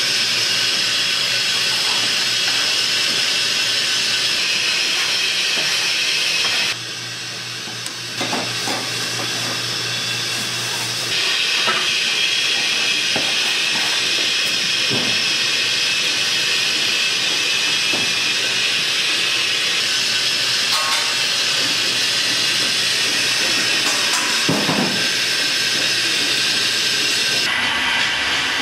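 Steady loud hiss of steam from a dumpling steamer, with scattered light knocks and clatter of kitchen work. The hiss drops away abruptly about seven seconds in and comes back about four seconds later.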